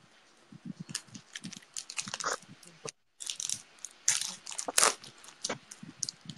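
A plastic food packet crinkling and crackling as it is handled and opened, in an irregular run of sharp crackles. The sound cuts out completely for a moment about three seconds in.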